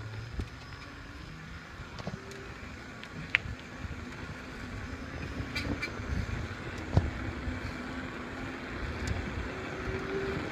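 Electric bike being ridden along a road: a low rumble of tyres and moving air with scattered rattles and knocks, slowly growing louder as the bike picks up speed.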